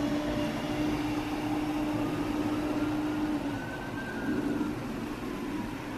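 Pepsi fizzing in a glass tumbler as it is poured and foams up, a soft steady hiss. Under it runs a steady low hum that drops away about three and a half seconds in.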